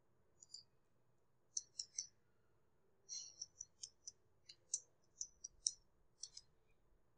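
Computer keyboard keys being typed: light, irregular clicks that come in quick clusters with short pauses between them.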